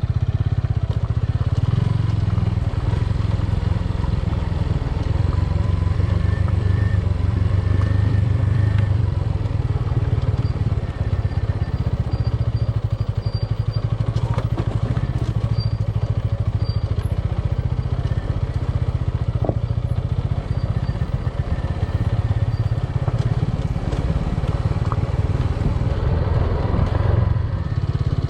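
Motorcycle running steadily while being ridden, with a constant low rumble and wind buffeting on the microphone.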